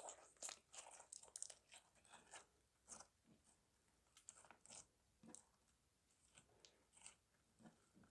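Slime being kneaded and squished by hand, giving faint, irregular sticky crackles and pops, packed close together for the first couple of seconds and sparser after.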